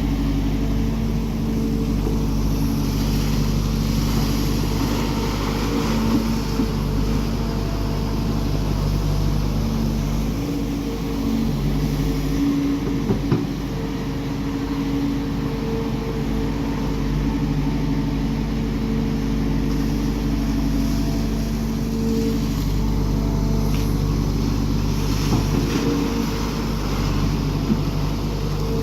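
Heavy machinery's diesel engine running steadily, with a strong low hum and small rises and falls in level.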